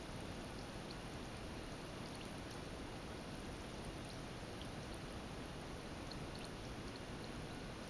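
Carbonated bath ball fizzing as it dissolves in a glass of water: a steady faint hiss with scattered tiny pops of bursting bubbles.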